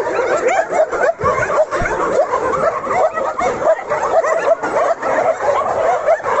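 Many kennelled dogs barking and yelping at once, a continuous chorus of overlapping calls with no break.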